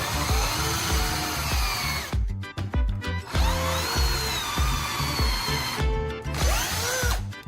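Electric drill running in spells, its pitch rising and falling, over background music with a steady beat. It breaks off twice, about two seconds in and again near six seconds.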